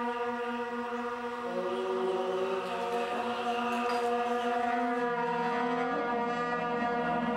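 Slow, chant-like drone music of long held notes over a steady low drone, with new notes coming in about one and a half seconds in and the harmony shifting twice near the end.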